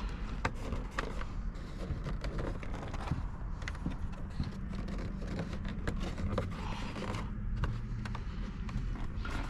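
Hands working wiring and plastic dash parts into place: irregular scraping and small clicks, over a steady low rumble.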